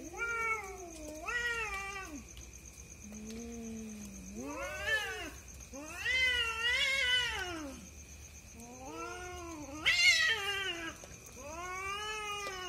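Two cats yowling at each other in a fight standoff: long, wavering caterwauls that rise and fall in pitch, one after another, the loudest about ten seconds in.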